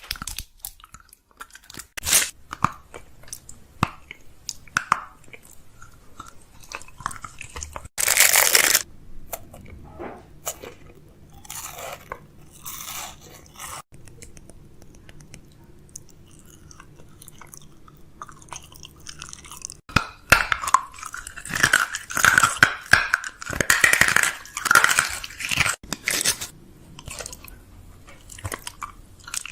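Restocking a fridge: packaging crinkling and crunching, and containers and items clicking and tapping as they are handled and set down. There is a loud rush of noise about 8 s in, and a busy run of crackly clatter in the second half.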